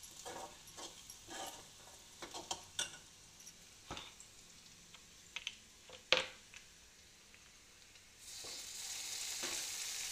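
Steel spoon scraping and stirring chopped onions and ginger-garlic paste as they fry in oil in a steel kadai, with irregular scrapes and knocks, one sharp knock about six seconds in. A steady frying sizzle grows louder about eight seconds in.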